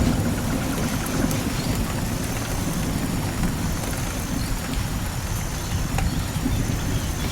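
Steady rain falling in a forest, with the ticks of individual drops over a constant low rumble.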